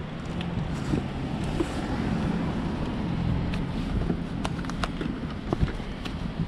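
Wind buffeting the microphone as a steady low rumble, with a few light clicks from items being handled in the second half.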